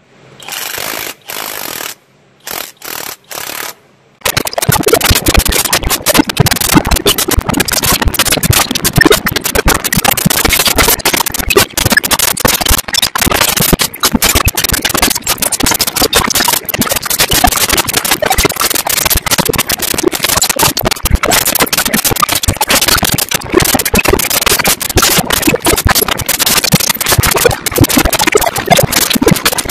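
A few short bursts of a cordless power tool spinning a 13 mm bolt. Then, about four seconds in, the audio breaks into loud, continuous crackling noise, a recording fault.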